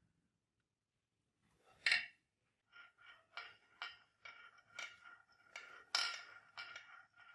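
Small metal parts clinking and scraping: one sharp scrape about two seconds in, then a run of light metallic taps, roughly two a second, each leaving a faint ring.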